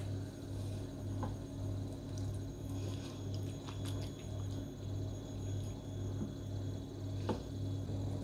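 A plastic slotted spatula cutting into a cheese-topped zucchini and egg bake in a glass baking dish, with a few soft scrapes and clicks around the middle and one sharper knock near the end. Under it runs a low hum that pulses about twice a second.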